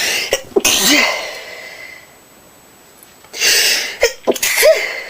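A woman sneezing twice, about three seconds apart, each sneeze a sudden loud burst of breath with a short voiced catch.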